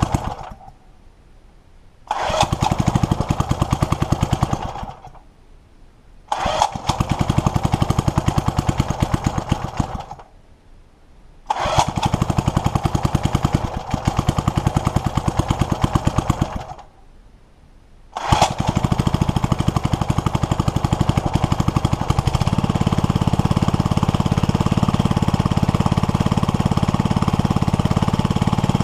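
Old Briggs and Stratton single-cylinder engine on a wheeled string trimmer being started: it fires, runs for a few seconds and cuts out, over and over, catching four times in all. On the last start, about 18 s in, it keeps going, settling to a steady run a few seconds later.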